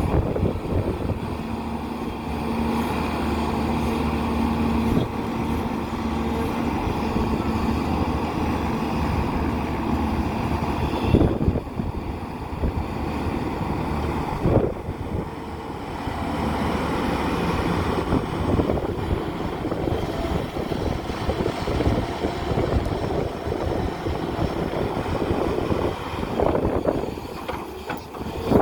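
JCB 3DX backhoe loader's diesel engine running steadily while working, with two loud knocks near the middle, about three seconds apart.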